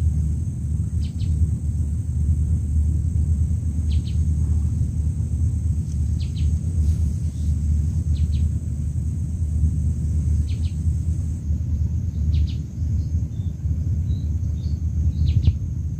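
Outdoor ambience: a steady low rumble, with short, faint bird chirps every second or two and a thin, steady high hiss.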